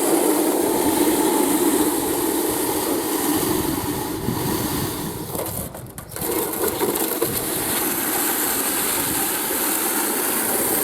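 Compressor-driven vibrating screed bar running steadily over wet concrete, with a brief dip in level about six seconds in.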